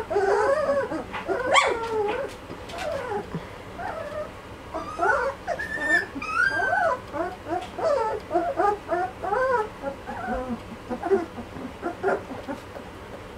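A litter of two-and-a-half-week-old Belgian Malinois puppies whimpering and squeaking over one another: many short, overlapping whines that rise and fall in pitch.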